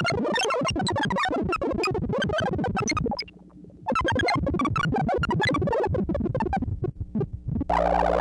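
Breadboarded 4-pole transistor lowpass synth filter self-oscillating, its pitch thrown around by a sample-and-hold control voltage into a rapid stream of bleepy, droid-like blips and short falling sweeps. The blips drop out briefly about three seconds in, and near the end give way to a steady buzzy tone.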